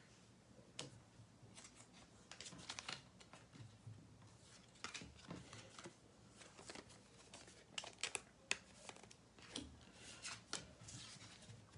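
Faint, scattered light clicks and rustles of hands handling trading cards and their packaging.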